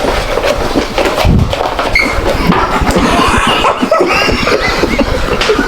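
Several people talking over one another and laughing, a loud jumble of voices with no single clear speaker.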